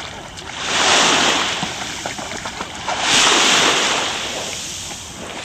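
Small waves breaking and washing up on a beach, twice, each wash swelling and then fading away.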